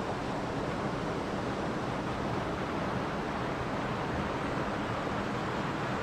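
Mountain river rushing over rocks in small rapids into a pool: a steady, even rush of water.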